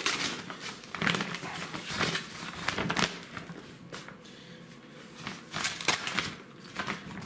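Stiff paper sack rustling and crinkling as it is pulled open and folded back off a block of frozen fish, in irregular crackles with a quieter spell a little past the middle.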